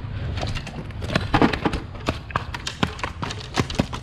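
A run of irregular sharp taps and knocks as a freshly landed sheepshead is handled in a landing net on concrete.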